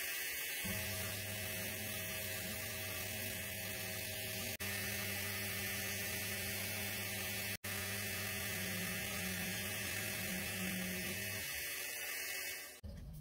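A drill press spins a sponge-backed sanding drum while a laminated wood grip is sanded against it. The motor hum is steady, with a hiss of dust extraction, and is broken twice by brief gaps. The motor note stops near the end, and the hiss cuts off just after it.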